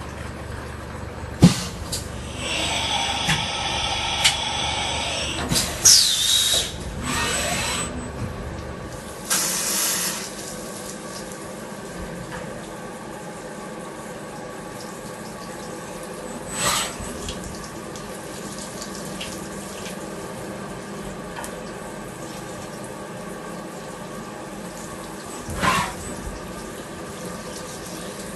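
CNC vertical machining center with a fourth axis running a machining program: several steady machine tones over a continuous wash of flowing coolant. It is busier and louder in the first few seconds, with a falling whine about six seconds in, a burst of spray-like noise a few seconds later, and two short sharp bursts later on.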